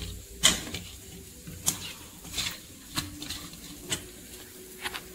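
Spice-coated elephant foot yam slices being handled and turned in a stainless steel bowl: about six light, irregular taps and clicks of the slices and fingers against the steel.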